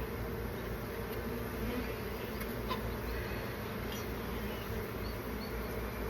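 Honeybee colony buzzing: a steady, continuous hum of many bees in flight around the opened nest.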